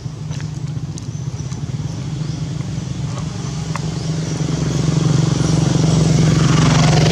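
A vehicle engine running steadily, growing louder from about four seconds in.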